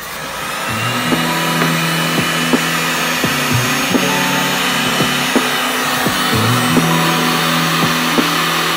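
Electric heat gun blowing hot air, a steady rushing hiss that builds over the first second, as it is played over a headlight's lens seal to soften the sealant. Background music with a steady beat plays underneath.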